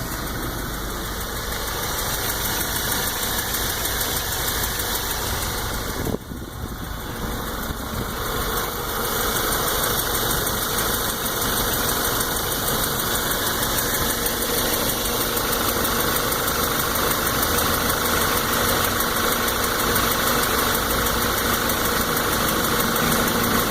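2014 Volkswagen GTI's 2.0-litre turbocharged four-cylinder running, with a fast, even ticking from the lower part of the engine that rises with RPM. It dips briefly about six seconds in and gets louder from about nine seconds on.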